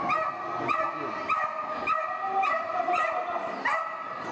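Dog barking over and over, short yapping barks about two a second.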